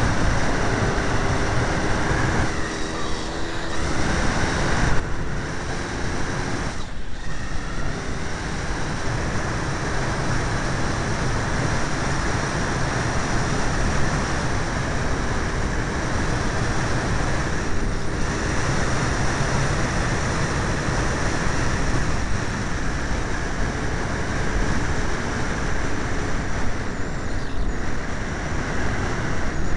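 Derbi Senda two-stroke motorcycle with an 80cc kit riding along. Its engine hum is heard through heavy wind noise on the microphone, coming and going, with a few brief drops in level.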